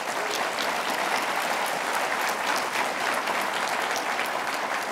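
An audience applauding steadily after the speech ends: many hands clapping.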